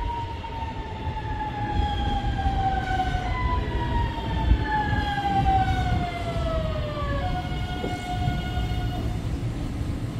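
CPTM series 9000 Alstom electric train braking into the station. Its electric traction whine slides down in pitch twice as the train slows, then holds one steady note near the end, over the low rumble of wheels on the rails.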